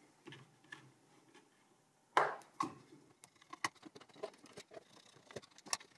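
Faint clicks and small knocks of a screwdriver working loose the screws of a server's CPU heatsink and the heatsink being lifted off the motherboard, with one louder knock about two seconds in.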